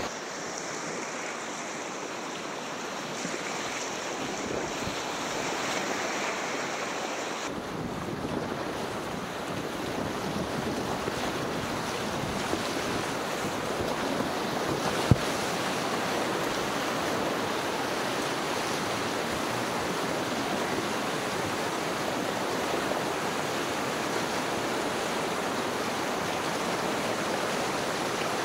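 River rapids rushing around a whitewater kayak: a steady wash of water noise that changes abruptly about seven seconds in and becomes fuller and lower. A single sharp knock about halfway through.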